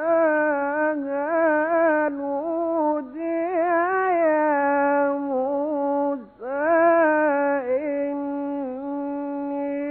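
Solo male Quran reciter in the Egyptian tajwid style chanting in a high, sustained voice. He holds long notes with melodic ornaments, in three phrases with brief breaks about three and six seconds in.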